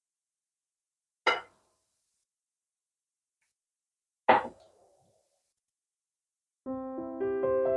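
Two short, sharp knocks about three seconds apart, in otherwise dead silence. Piano music begins near the end.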